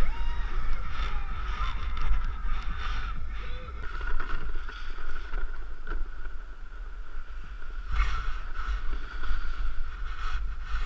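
Wind buffeting an action camera's microphone during a snowboard run, a steady low rumble, with the snowboard scraping and hissing over packed snow in short bursts.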